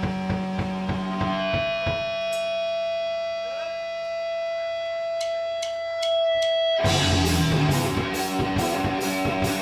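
Live rock band playing. An electric guitar holds a long ringing note with a few light cymbal strikes, then the full band with drums comes in louder about seven seconds in, cymbals struck steadily about twice a second.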